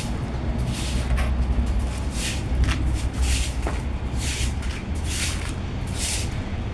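Footsteps scuffing on the ground at an uneven walking pace, over a steady low hum.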